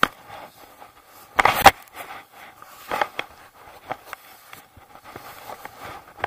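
Irregular crunching and scraping close to the microphone, with the loudest burst about a second and a half in: a skier's gear moving in snow, with jacket fabric brushing the microphone.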